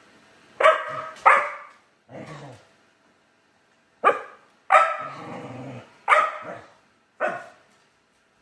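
Shetland Sheepdog barking: six sharp barks in two bursts, with lower, longer sounds between them.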